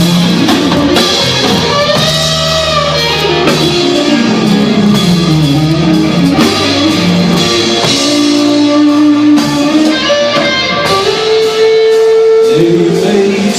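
Live rock band playing a song's instrumental opening: guitar holding long notes that slide up and down, over drums.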